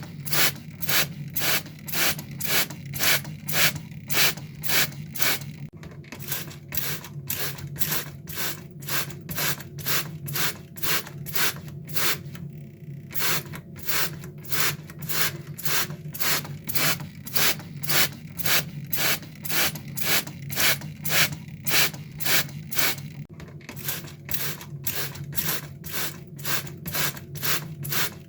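Water sprayer squirted in short hissy bursts at an even rhythm, about two to three a second, with a brief pause about twelve seconds in, over a steady low hum.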